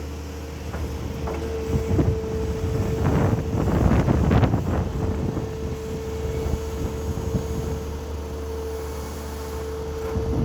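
Excavator running with a steady low engine hum and a constant high whine, with a run of irregular knocks and scrapes about two to five seconds in and another knock near the end.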